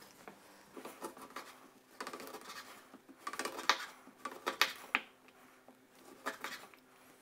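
Chef's knife cutting through dried, chilli-coated biltong on a wooden cutting board: a series of short scraping cuts, roughly one a second.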